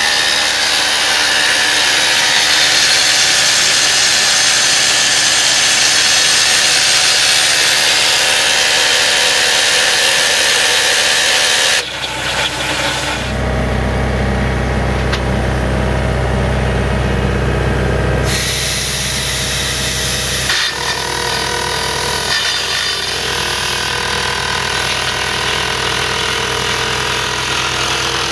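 Excavator-mounted rock drill attachment and the excavator's diesel engine running: loud, hissy high-pitched machine noise for about the first twelve seconds. It cuts off abruptly into a low engine drone, and about six seconds later a steadier mid-pitched machine sound with a few steady tones takes over.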